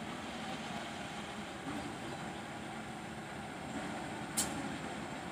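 Diesel locomotive running steadily at a distance as it shunts a rake of passenger coaches. A short sharp noise cuts in just over four seconds in.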